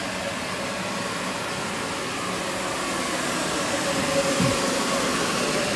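Portable commercial dehumidifier running with a steady fan whir and hum, louder in the second half. A brief low falling sound comes a little past the middle.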